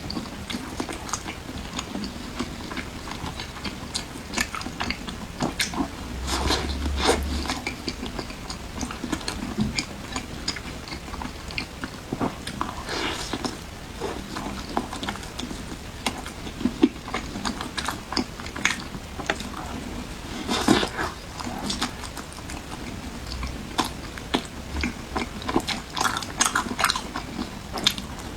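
Close-miked eating: a person biting and chewing crunchy food, with irregular crunches and clicks.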